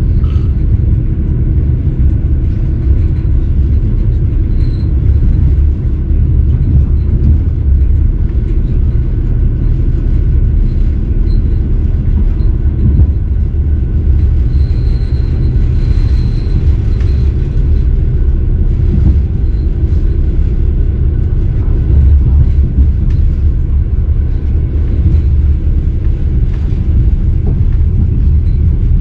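Passenger train running, a loud steady low rumble.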